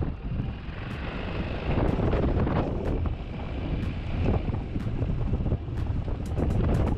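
Motorcycle ride heard through an action camera: wind buffeting the microphone over the engine running, with scattered sharp clicks and knocks that come thicker near the end.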